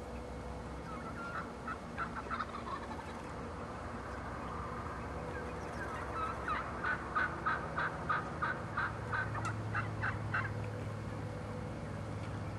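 Wild turkeys calling: a few short notes about two seconds in, then a long run of about a dozen short, evenly spaced notes from about six to ten seconds in.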